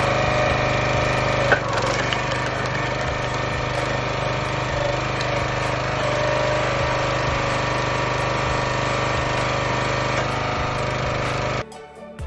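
Hydraulic log splitter running steadily as its wedge is driven through a log, with one sharp crack of splitting wood about one and a half seconds in.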